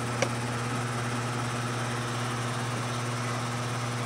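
Steady low hum of an idling engine, with one sharp click about a quarter of a second in.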